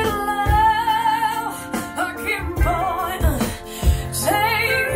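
Soul music played back through Canton Reference 1.2 DC floorstanding speakers and a subwoofer, heard in the listening room. A female vocal wavers over a steady drum beat and heavy bass.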